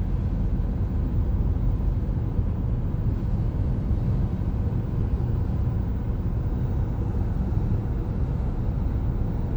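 Steady low rumble of a vehicle, even throughout, with no horn, bell or sudden knocks.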